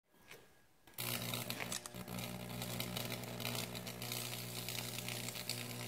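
High-voltage transformer switching on about a second in and humming steadily, while current burns a fractal (Lichtenberg) pattern through the wet wooden dowel with constant crackling and sizzling.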